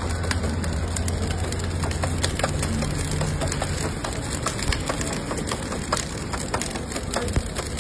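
Burning coals in a stove crackling and popping with many sharp little snaps as the fire is fanned and throws sparks. A low steady hum runs under it for about the first half.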